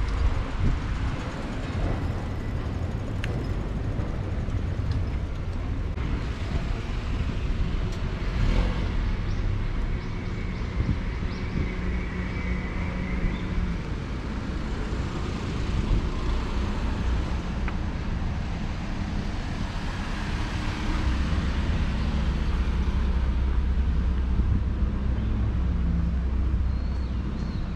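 Street ambience with a steady low traffic rumble from road vehicles.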